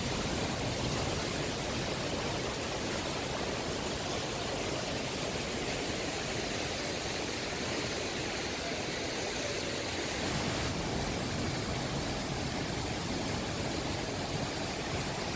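Waterfall rushing water, a steady, even noise that does not change.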